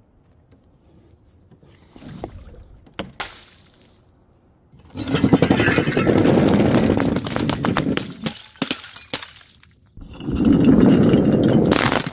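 Glass bottles breaking and crunching: a few light clinks about two to three seconds in, then a long burst of dense shattering and crunching from about five to nine seconds, and another starting at about ten seconds.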